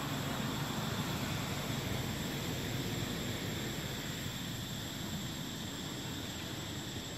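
Steady outdoor ambience: a constant low rumble under an even hiss, with a thin steady high tone above it and no distinct events.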